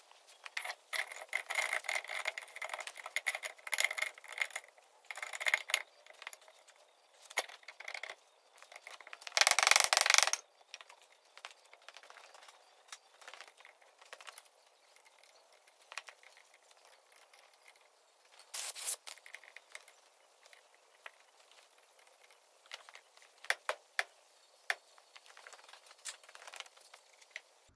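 Ratchet wrench clicking in quick runs and metal tools clinking while the cover is bolted back onto a tractor's front axle hub. A loud burst of noise lasting about a second comes about ten seconds in, and a shorter one near nineteen seconds.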